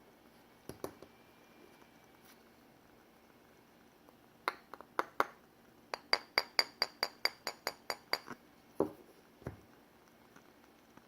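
Light tapping on a glass candle jar: a few scattered taps, then a quick, even run of about a dozen ringing glass clicks at roughly five a second, followed by two duller knocks.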